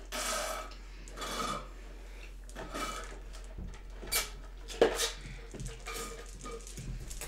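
Drink sucked through a straw from a nearly empty paper cup: a series of short rattly slurps about a second apart, with a sharp click about five seconds in.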